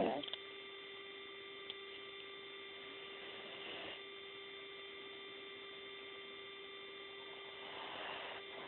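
Faint snoring breaths of a sleeping cat: two soft, breathy swells about four and a half seconds apart, under a steady electrical hum.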